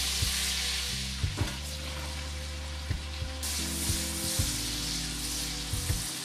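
Food sizzling steadily as it fries in a pan, over background music.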